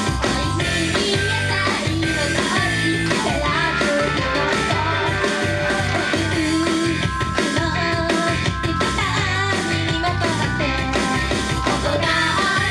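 Upbeat idol pop-rock song with drums, electric guitar and bass under female group vocals.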